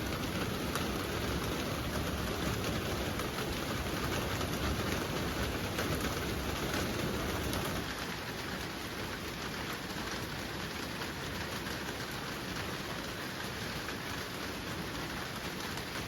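Steady rain falling, a dense even patter that gets a little quieter about halfway through.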